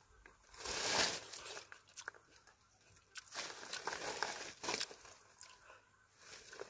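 A dekopon (Hallabong) mandarin being pulled apart by hand and eaten: wet tearing of the thick peel, pith and segments, and chewing. It comes in a few short bursts, the loudest about a second in.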